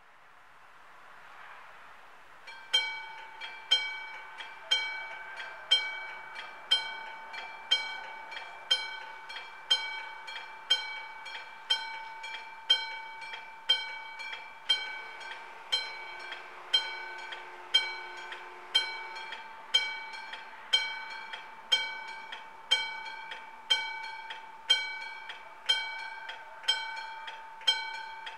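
Old-style level-crossing warning bells striking steadily, about two strokes a second with alternate strokes louder, each stroke ringing on. This is the crossing's warning as it closes for an approaching train. A rising hiss comes in the first two seconds, before the ringing starts.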